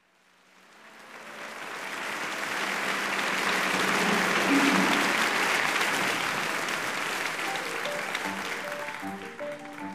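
Audience applause fading in and holding, with the instrumental introduction of the song starting under it in the last couple of seconds, typical of a live recording's opening.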